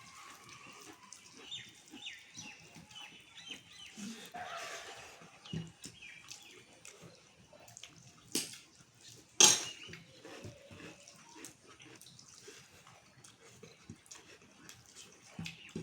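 Close-up sounds of eating rice and dal: irregular chewing, smacking and slurping mouth noises with scattered small clicks. A sharp, loud click comes about nine and a half seconds in.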